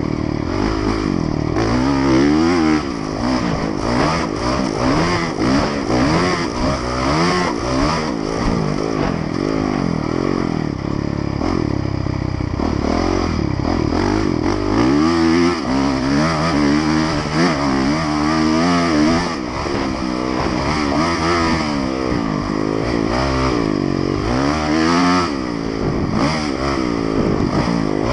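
Honda motocross bike's engine being ridden hard on a dirt track. It revs up and down over and over, the pitch climbing under throttle and dropping on gear shifts and when backing off for turns.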